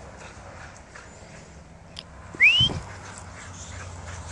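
Boxer dogs playing on grass. About two and a half seconds in comes one short, high squeal that rises in pitch, the loudest sound here.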